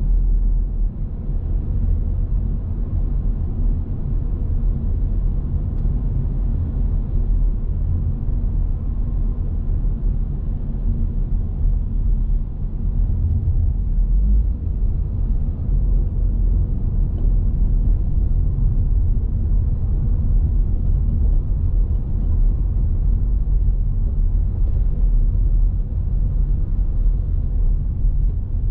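Car driving along: a steady low rumble of engine and tyre noise, unchanging throughout.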